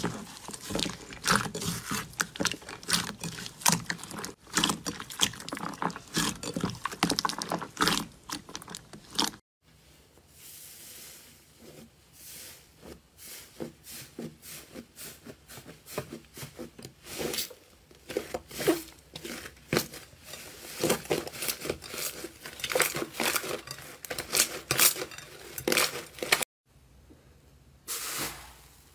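Slime handled in a glass bowl: clear pink slime squeezed by hand gives a dense run of sticky clicks and squelches, then after a break a puffy inflated slime being pressed gives quieter, scattered crackling and popping that grows thicker. Near the end there is a short burst of crackling as a hand pushes into a crusted iceberg slime.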